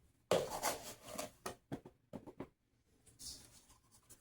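A cup of sugar poured into a bowl of dry baking ingredients: a short grainy hiss, then a string of light taps and scrapes that fade out, with a brief soft hiss near the end.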